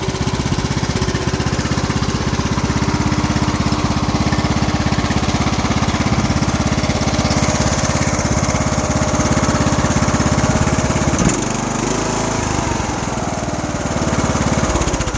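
Briggs & Stratton 21 HP riding-mower engine running steadily, running good now that a misplaced carburetor main jet that was making it over-fuel has been fixed. About eleven seconds in there is a sharp click, and after it the engine's note shifts.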